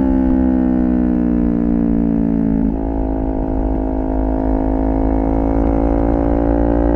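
Kawasaki Ninja 400's parallel-twin engine running at a steady cruise, heard from the rider's seat with wind rumble underneath. The engine note sags slightly, breaks briefly about two and a half seconds in, then climbs slowly.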